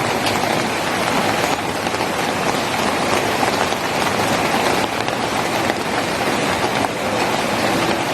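Steady, heavy rain falling: an even, unbroken hiss of drops.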